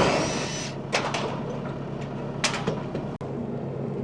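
Cordless Makita impact driver whirring as it backs out roof tek screws, the whine dying away within the first second, then two short bursts of driving. A machine engine idles steadily underneath.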